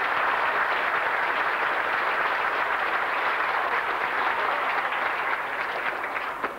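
Crowd applauding, the clapping thinning out and dying down near the end.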